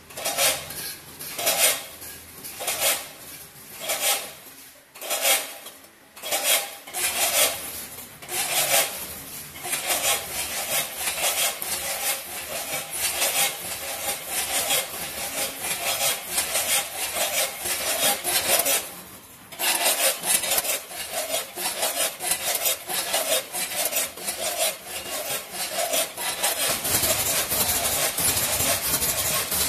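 Potato chips sliding and rattling through the stainless steel buckets of a multihead weigher, in short swishes about every second at first, then a dense, nearly continuous rattle. Near the end it turns into a steadier machine noise.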